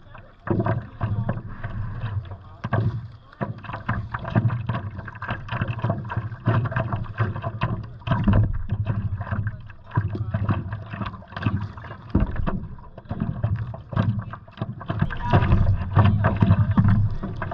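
Water slapping and splashing against the nose of a stand-up paddleboard under paddle strokes, in uneven gusts and splashes, with wind buffeting the microphone.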